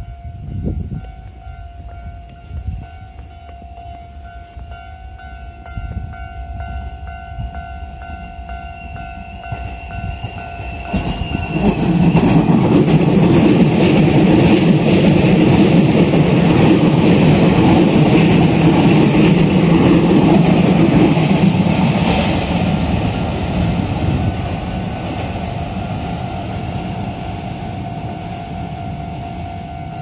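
A level-crossing warning alarm sounds a steady electronic ringing. About a third of the way in, a Keikyu New 1000 series electric train comes through the crossing, and the loud rumble of its wheels on the rails drowns out the alarm. The rumble fades about two-thirds of the way through, and the alarm goes on ringing.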